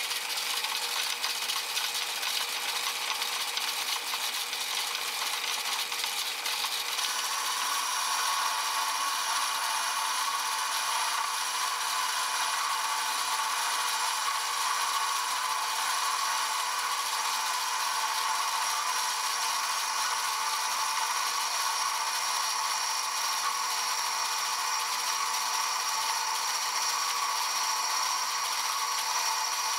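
Metal lathe running while a boring bar cuts inside a steam engine cylinder casting: a steady machining noise with steady high tones that grow stronger about seven seconds in.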